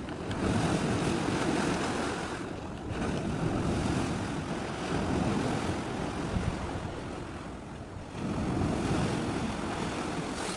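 Wind and sea waves: a rushing noise that swells and eases in three surges.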